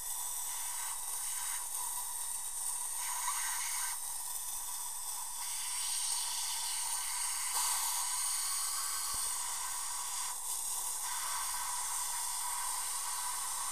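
Dental rinse: the air-water syringe sprays water over the prepared tooth while the suction draws it off, a steady hiss.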